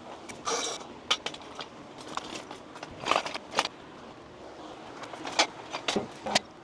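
Scattered light metallic clinks and knocks, with a short scrape about half a second in, as a car body cart is taken partly apart and moved.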